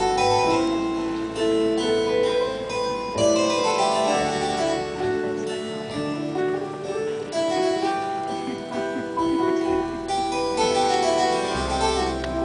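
Live instrumental music from a small ensemble: a melody of separate plucked or struck notes over intermittent low bass notes, with no singing.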